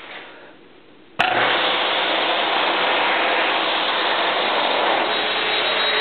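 Electric hand dryer switching on suddenly about a second in, then blowing a loud, steady rush of air.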